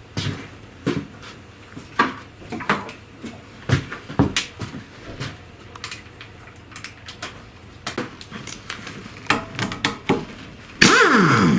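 Metal tools clicking and knocking against metal while a bolt on the motor pump is undone with a 12 mm socket. Near the end a loud sound lasting under a second, falling in pitch.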